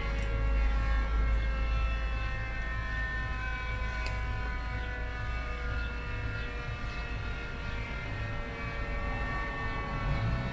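Flood warning siren sounding a chord of several tones that slowly falls in pitch, over a low rumble.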